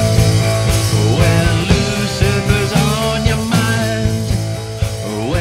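Rock band music from a punk/alternative rock song, in a stretch without sung lyrics.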